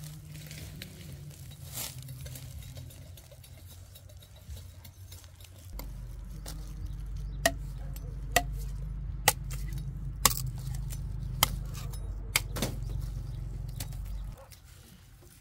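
Machete blows on sugarcane stalks: about seven sharp knocks, roughly one a second, over a low steady rumble.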